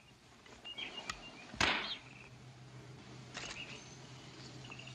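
A small bird chirps briefly, then a single sharp rifle shot about one and a half seconds in, the shot that brings the bird down.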